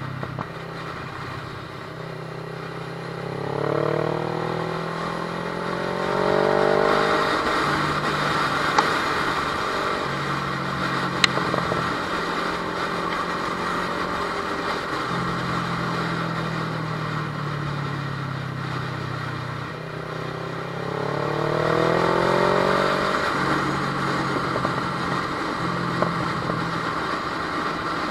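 Kawasaki ER-6n's 649 cc parallel-twin engine under way on the road. It runs at a steady pitch, then accelerates with rising revs twice, about three seconds in and again about twenty seconds in.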